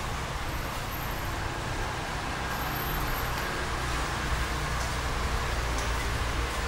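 Steady urban road traffic: a low rumble of cars going by, growing slightly louder in the second half.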